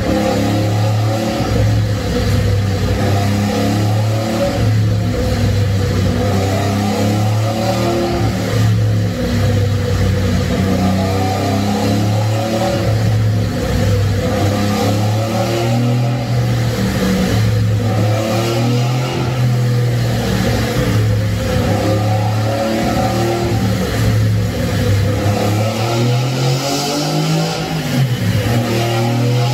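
Three-rotor rotary engine in a tuned Mazda RX-7 running loudly at a steady speed. Near the end the revs rise, dip briefly, and climb again.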